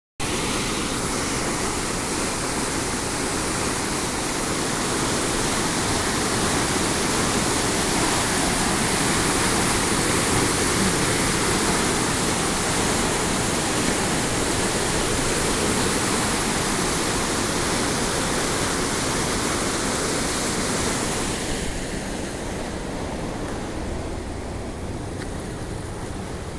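Canal water pouring over a weir into churning white water: a loud, steady rushing. About three-quarters of the way through it becomes quieter and duller.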